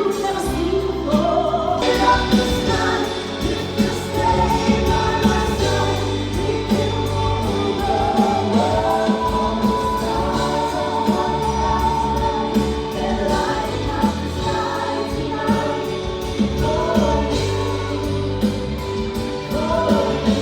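Music: a song with choir-like singing over a steady beat.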